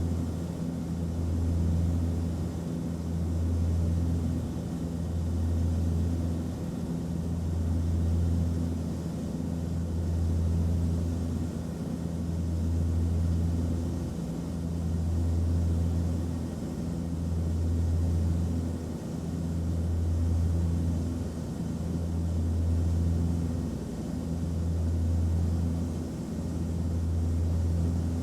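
Airplane cabin noise: a steady low drone from the engines and airflow, with a deep hum that swells and eases about every two seconds and a faint steady tone above it.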